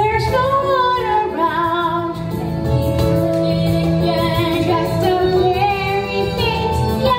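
Young performers singing a musical-theatre number together, girls' voices to the fore, over instrumental accompaniment, with some long held notes.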